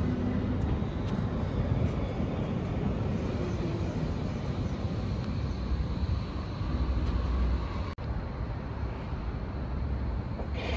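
Berlin U-Bahn trains running along elevated station platforms: a steady rumble of wheels on rail with a faint motor whine. The sound breaks off for an instant about eight seconds in, then carries on with a more distant train.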